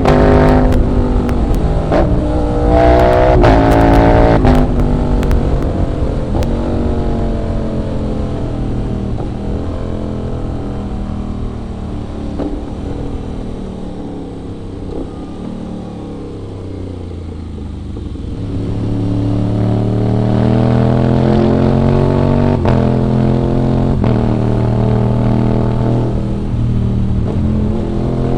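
Aprilia RS 660's 659 cc parallel-twin engine under riding, revving up in short pulls with brief breaks between them, then winding down slowly as the bike slows. The engine note is lowest and quietest around the middle, then builds up again and holds steady toward the end.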